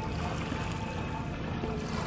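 Steady wash of small waves at the shoreline, with faint music underneath.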